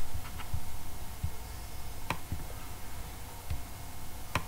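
A few scattered clicks from a computer's mouse and keyboard, the loudest about two seconds in and near the end, over a low steady hum.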